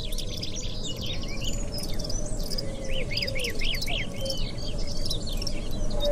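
Small birds chirping and twittering in quick, high notes, with a fast run of about six chirps in the middle. Underneath runs a steady held tone that dips in pitch a couple of times.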